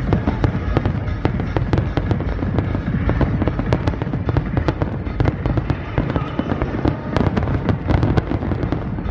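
Fireworks display: a dense, unbroken barrage of bangs and crackles over a deep rumble.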